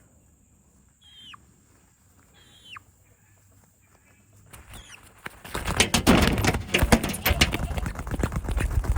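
A young rooster giving short, falling peeps about every second and a half. Then a loud, dense flurry of rustling and knocking fills the last three and a half seconds.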